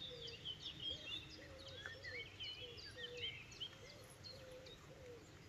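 Songbirds chirping and whistling in short overlapping phrases, with a lower repeated call underneath, over faint outdoor hiss.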